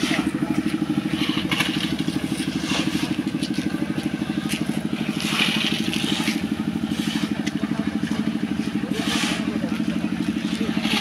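Small diesel engine running steadily with a fast, even chug, as on a site concrete mixer. Short bursts of scraping and crunching from wet concrete being tipped and worked come over it now and then.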